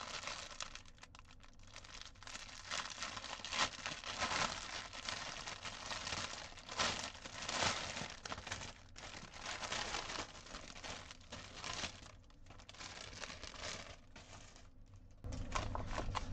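Crinkling of a clear plastic kit bag holding embroidery floss and printed cross stitch fabric as it is handled and turned over, in irregular bursts.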